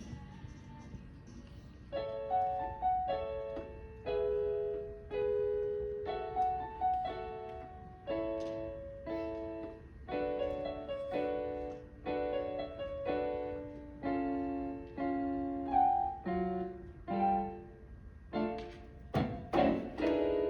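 Piano playing a slow sequence of chords, one struck about every second, with a couple of sharp accents near the end before a final held chord.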